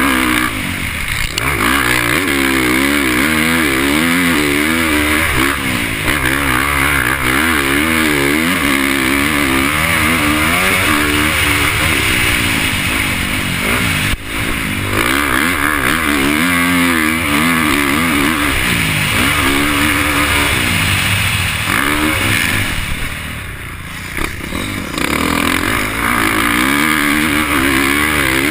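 Motocross dirt bike engine revving up and down repeatedly as the rider works the throttle around the track, heard from the rider's helmet camera. The throttle is briefly closed about four-fifths of the way through, then the engine revs up again.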